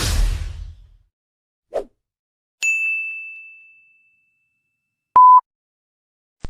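A run of separate video-editing sound effects: a whoosh right at the start, a brief low blip near two seconds, a bright ding that rings out and fades over about a second and a half, then a short, loud, steady beep about five seconds in.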